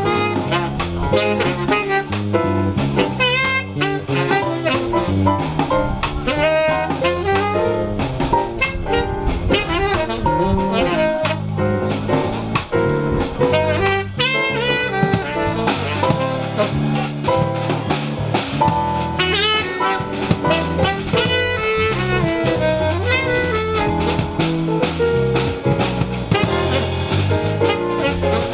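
Live jazz: a saxophone plays the lead melody with wavering, vibrato-laden held notes, over a drum kit and a low bass line.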